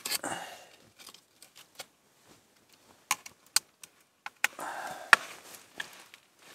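Multitool knife blade cutting and prying splintered wood out of a broken ski's wooden core at the crack: scattered sharp snaps and clicks, with a short scraping stretch about halfway through and the sharpest snap a little after it. The loose wood fibres are being trimmed away so the break will close back up.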